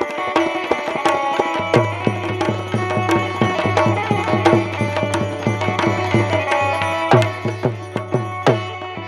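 Instrumental Indian folk music: a fast hand-drum rhythm with deep ringing bass strokes over held melodic notes.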